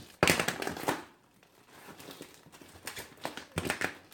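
Cardboard shipping box being cut open, its tape and cardboard rasping and tearing. One loud stretch comes about a quarter second in and lasts under a second, then several shorter rasps follow near the end.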